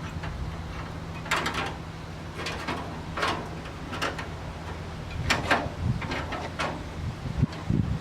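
Several short scraping and rubbing sounds of sheet metal being handled and fitted, spaced a second or so apart, over a steady low hum.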